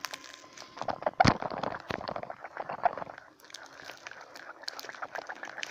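Paper and tape crinkling and crackling as a homemade paper squishy is opened and handled, with one louder knock about a second in.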